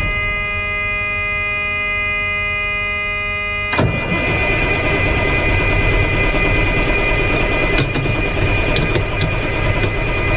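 Mack E7-350 12-litre inline-six diesel turning over on the starter without catching: the engine cranks but will not start. A steady high-pitched tone sounds over the cranking, and there is a sharp click about four seconds in.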